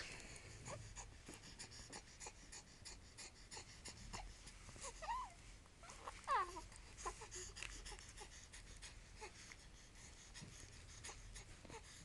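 A baby's soft coos: a few short vocal sounds that slide in pitch, about five and six seconds in, with faint clicks between them.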